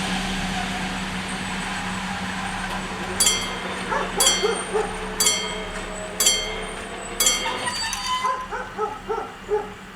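Level-crossing bells striking about once a second, five times, then stopping, while a dog barks and yelps repeatedly.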